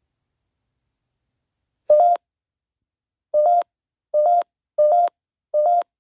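Five short electronic beeps from the GhostTube ghost-hunting app on a phone, each a brief two-step tone that steps up slightly in pitch. One comes about two seconds in, and four more follow in quick succession near the end.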